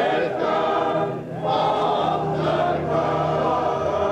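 Men's choir singing in harmony, long held chords, with a short pause for breath about a second in.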